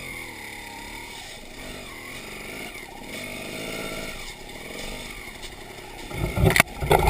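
Off-road motorcycle engines revving at a distance, their pitch wavering up and down. About six seconds in, loud irregular low rumbling and knocks take over.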